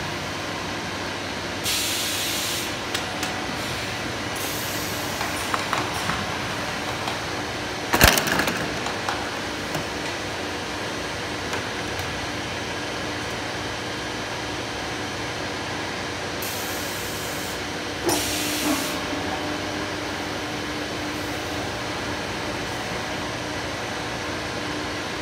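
Steady factory machinery noise from a pneumatic PE pipe-processing machine, broken by short bursts of compressed-air hiss from its air cylinder. A sharp knock comes about a third of the way in and another past the middle, the second followed by a steady motor hum.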